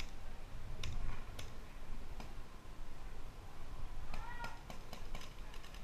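Scattered faint pops and clicks of paintball markers firing across the field, a few single shots spaced irregularly, over a low rumble.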